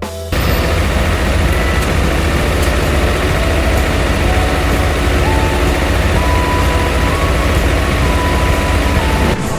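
Heavy engine sound effect running steadily with a deep rumble, cutting in just after the start and stopping abruptly near the end.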